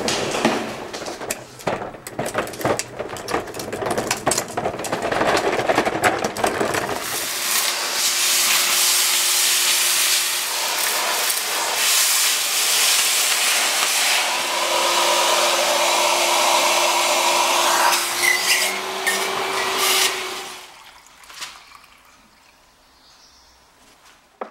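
Rattling and knocking of a Metabo ASR 25 L SC wet/dry vacuum being rolled on its castors over an uneven floor. About seven seconds in, the vacuum's suction starts: a steady loud rushing hiss with a steady hum as the hose nozzle sucks up dry debris. It stops about 20 seconds in.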